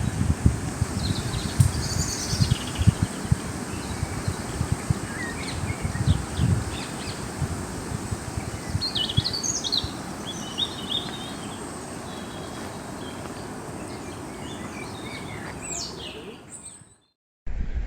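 Small birds chirping and calling in short phrases over steady outdoor background noise with a low rumble on the microphone. The sound cuts out suddenly near the end.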